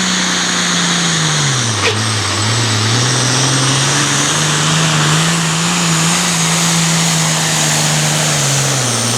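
Turbocharged diesel farm tractor engine running hard under load while pulling the weight sled. Its pitch sags about two seconds in, climbs back and holds, then falls away near the end, with a high whine above it and a sharp snap early on.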